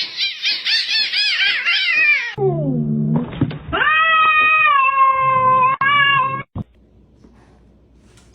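Cat meowing: a quick run of short, high-pitched mews, then after a cut a long drawn-out yowl of about three seconds that cuts off suddenly.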